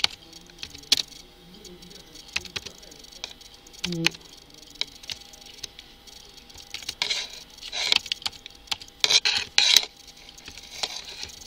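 Computer keyboard keys clicking in irregular strokes as text is typed, with quick runs of keystrokes about seven and nine seconds in.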